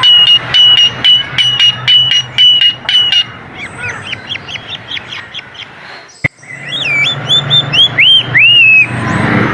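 Coleto (Sarcops calvus) calling: first a rapid, even series of sharp metallic notes, about three a second. Then comes a quieter run of short hooked notes, a single sharp click a little after six seconds, and louder arched whistles near the end.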